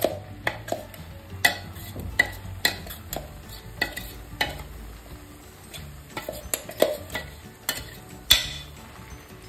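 Ground boiled chana dal dropping into hot ghee in a metal kadhai, with a soft frying sizzle. Sharp, irregular metal clinks and knocks, one or two a second, come from the metal bowl being tapped and scraped against the pan as the paste is emptied out; the loudest knock comes near the end.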